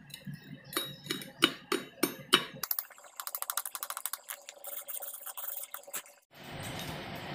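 Chipping hammer striking a stick-weld bead to knock off the slag: about eight sharp metal strikes over two seconds. Then a few seconds of rapid fine clicking, and a steady hiss starts near the end.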